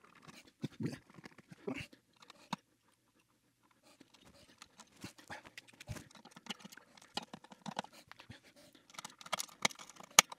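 Scattered light clicks and scrapes of hand work on an electronics chassis: a screwdriver driving the circuit board's screws and wire connectors being pushed onto the board's spade terminals.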